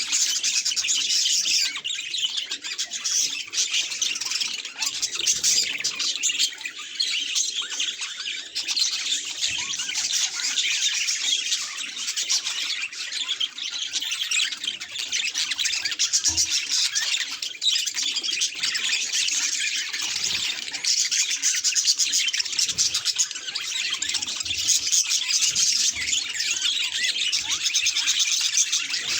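Budgerigars chattering: a continuous, dense stream of fast chirps, warbles and squawks.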